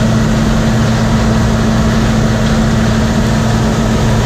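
Vehicle engine running steadily at constant speed: a loud, even drone with a constant low hum.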